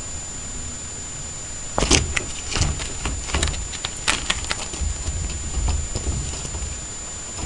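Black wire pet crate rattling and clinking in an irregular run of sharp clicks as an orange tabby kitten climbs and paws at its bars. The rattling starts about two seconds in, thins out after about five seconds, and is followed by a few dull thumps.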